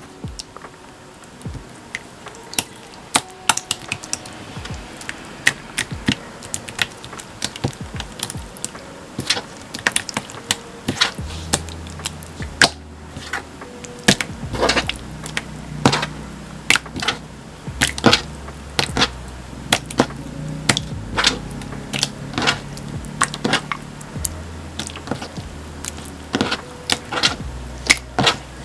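Purple slime squeezed, poked and slapped by hand onto a cutting mat: a busy run of sticky clicks, snaps and squelching pops. Quiet background music with a low bass line comes in about a third of the way through.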